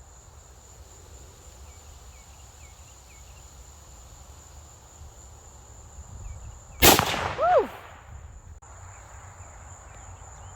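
A single AR-10 rifle shot about seven seconds in, followed by a short rising-and-falling voiced exclamation. A steady high-pitched insect drone runs underneath.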